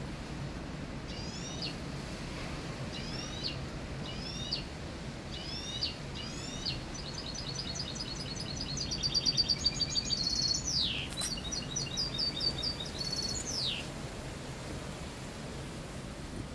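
Caged mixto, a canary crossed with a wild finch, singing: short chirped phrases about a second apart, then a long rapid trill broken by falling sweeps, loudest about nine to ten seconds in.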